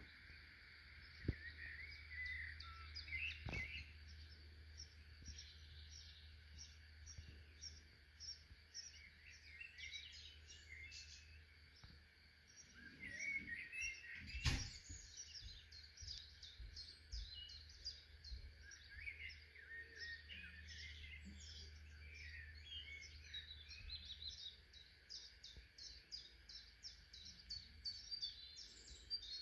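Birds singing and chirping, with runs of quick repeated notes, over a faint low steady hum. A few sharp knocks cut in, the loudest about fourteen seconds in.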